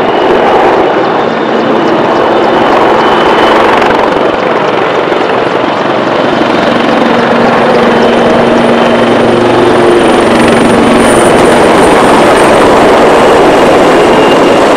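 AgustaWestland AW159 Wildcat HMA2 helicopter flying low past: steady, loud rotor noise with a thin high whine from its twin turboshaft engines.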